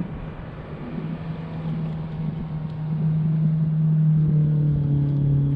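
Motorboat engine running with a steady low hum that grows louder about three seconds in.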